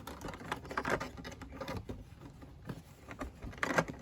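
Irregular small clicks, scrapes and rustles of hands pulling an LED light's wire through a plastic car door trim panel and pressing the light into place, with a louder flurry of clicks near the end.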